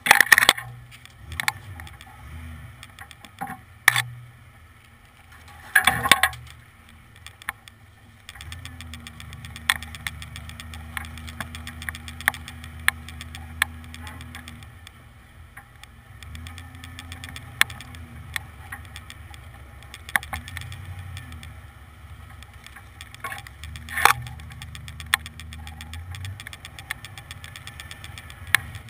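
The V8 of a 1992 Ford F-150 running at a crawl, a low steady drone heard from outside the truck low by the wheel, firmer from about eight seconds in. Sharp knocks and rattles land now and then, loudest at the start, about six seconds in and near twenty-four seconds.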